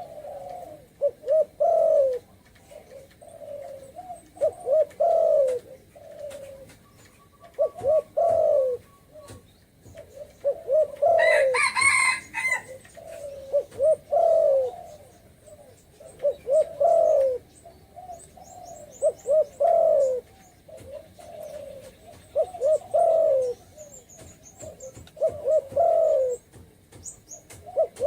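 Spotted dove cooing over and over, in the deep rolling 'thổ rền' style: each phrase is a short run of low coos, repeated every two to three seconds. About twelve seconds in, a brief, harsher call with many overtones breaks in. Later there are faint high chirps from a small bird.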